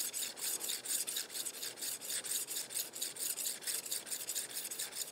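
Small hand-held diamond hone rubbed in quick back-and-forth strokes along the edge of a rusty drawknife, several strokes a second in an even rhythm: hand-honing the freshly ground bevel.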